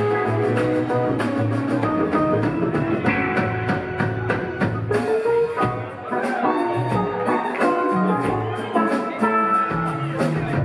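Live rock band playing an instrumental jam: electric lead guitar over bass, keyboards and percussion with a steady drum beat.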